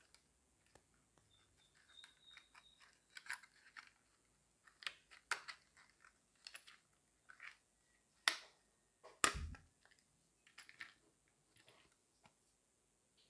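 A clear plastic blister pack and its cardboard backing card crinkle and crackle in the hands as the pack is pulled open, with scattered soft clicks. Two sharper snaps come about eight and nine seconds in, the second with a low thump.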